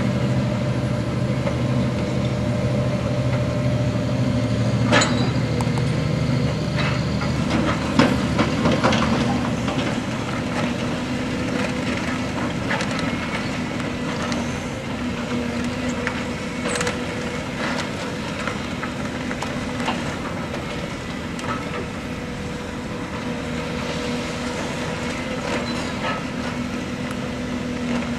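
Volvo EC360C high-reach demolition excavator's diesel engine running steadily under hydraulic load, with scattered cracks and clatters of brick masonry breaking and falling, the loudest about five and eight seconds in.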